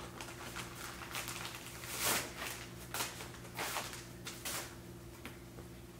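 Plastic packaging and fabric rustling as plush items are handled and unwrapped, in several short swishes, over a faint steady hum.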